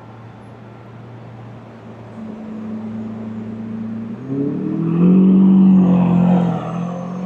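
A road vehicle's engine: a steady low hum, then about four seconds in it revs up, rising in pitch as it pulls away, loudest around five to six seconds in and easing off near the end.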